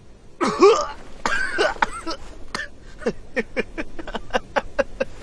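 A woman's voice: a couple of wordless cries, then from about three seconds in a rapid staccato laugh, about five short bursts a second.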